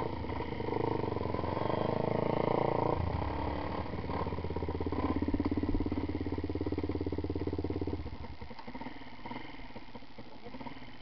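Off-road motorcycle engine running on a dirt trail, changing pitch about three seconds in and then falling to a quieter, lower note about eight seconds in.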